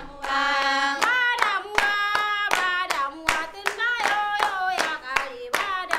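Women singing a song, accompanied by steady hand clapping.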